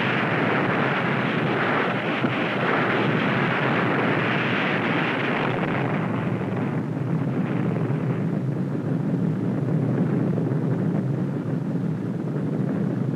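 Continuous rushing roar of the Test Baker underwater atomic blast on the archival film soundtrack. It is brightest for the first six or seven seconds, then settles into a lower, steady rumble.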